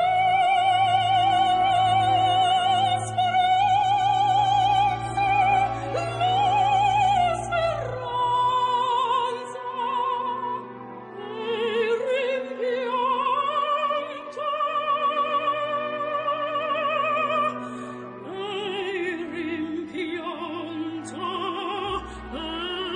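Operatic singing: a solo voice holding long notes with wide vibrato over a sustained low accompaniment.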